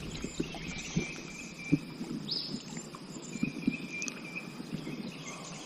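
Calm river ambience aboard a drifting kayak. A high, thin trill starts and stops repeatedly, and a single rising whistle comes about two seconds in. Soft, scattered low knocks are heard throughout.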